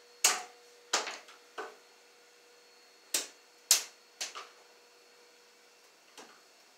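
Sharp clicks and snaps of hand tools and stiff electrical wire being worked at a wall-mounted electrical box, about seven in all, with a gap of more than a second between the middle group and the last one, over a faint steady hum.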